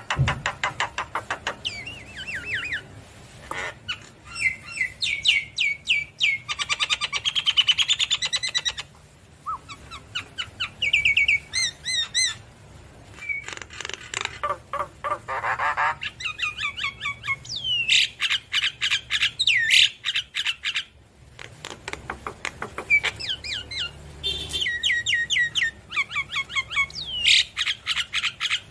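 Javan myna singing a fast, varied song of chirps, whistles and harsh rasping notes in long runs, broken by a few short pauses.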